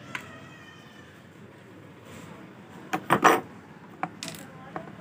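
Sharp knocks and clatter of a screwdriver and plastic parts being handled on an opened induction cooktop during reassembly, loudest in a cluster about three seconds in, with a few lighter clicks after. A short high-pitched call sounds near the start.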